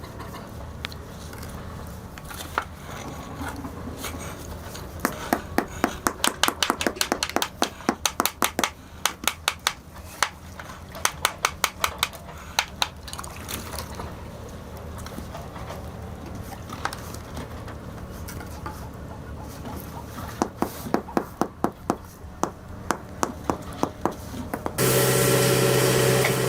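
Runs of rapid, sharp knocks, several a second, over a steady low background hum, typical of construction tool work. Near the end a much louder steady machine noise with a low hum cuts in abruptly.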